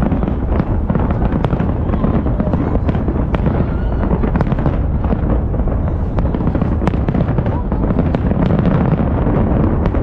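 Fireworks display: dense, rapid crackling and popping from bursting gold shells, over a constant low rumble, loud throughout.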